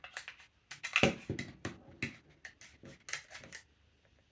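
Long screwdriver clicking and scraping against a tightly wedged part in an airsoft SMG's pistol grip as it is pushed loose: a string of small, sharp clicks, the loudest about a second in.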